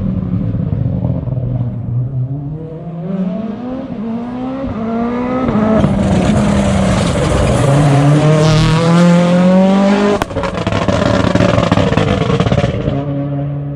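Hyundai i20 N Rally1 rally car's turbocharged four-cylinder engine accelerating hard through several upshifts, each one a climbing pitch that drops at the shift, growing louder as the car nears. There is one sharp crack about ten seconds in, and the engine note settles lower as it fades near the end.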